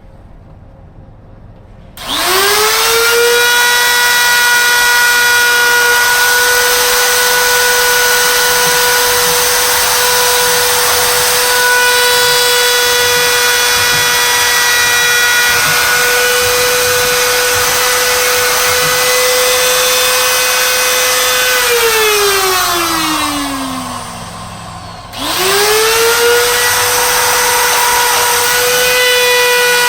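Dremel rotary tool cutting into brick. It spins up about two seconds in to a steady high-pitched whine, is switched off about three quarters of the way through and winds down with a falling pitch, then is started again and spins back up.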